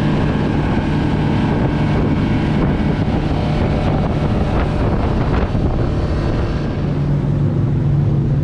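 Motorboat engine running steadily at cruising speed, with wind buffeting the microphone and the rush of water from the hull.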